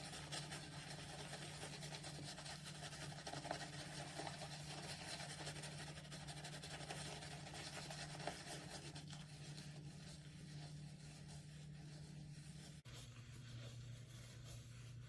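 Synthetic shaving brush swirled in small figure eights against the face, its bristles scratching softly through shave soap to work up a face lather.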